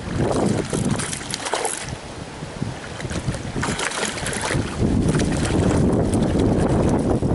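Hooked trout thrashing and splashing at the water's surface while being played on a lure rod. Wind buffets the microphone, turning into a heavier low rumble about five seconds in.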